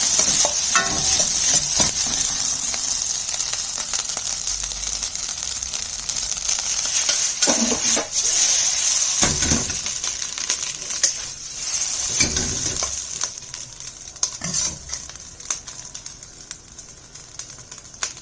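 Fried rice sizzling in a hot pan while being stirred, with short scrapes and knocks of the utensil against the pan. The rice is popping, which the cook takes as the sign that the fried rice is good. The sizzling grows quieter over the last few seconds.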